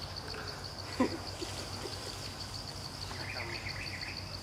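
An insect chirring in the trees, a high-pitched, fast and evenly pulsed call that never stops. A brief, louder sound breaks in about a second in.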